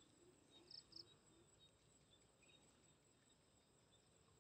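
Near silence: faint insects chirping steadily, with two short higher chirps about a second in.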